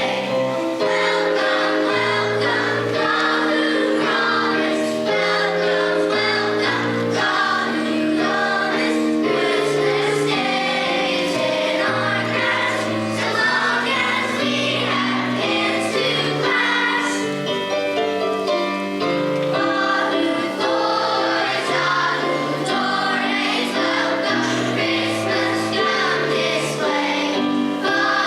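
High school choir singing a Christmas song, with sustained low notes that move in steps beneath the voices.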